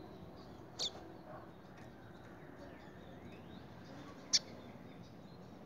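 White-collared seedeater giving two short, sharp, high notes about three and a half seconds apart, the second louder, with fainter thin chirps between them.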